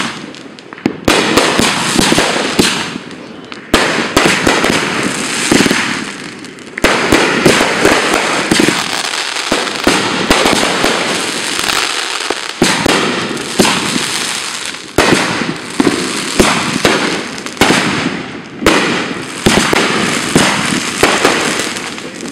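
Fireworks display: aerial shells bursting one after another with sharp bangs, the crackle of burning stars filling the gaps between them. From about seven seconds in the bursts come thick and fast in a near-continuous barrage.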